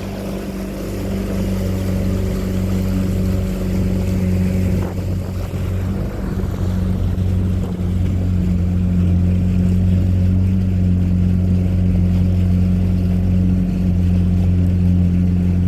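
Engine running at a steady speed, a deep even hum with the rush of moving air.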